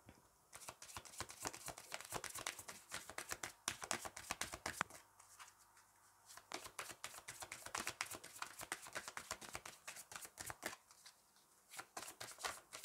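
Soft hand shuffling of a deck of oracle cards: dense runs of quick card flicks and slaps, broken by a few brief pauses.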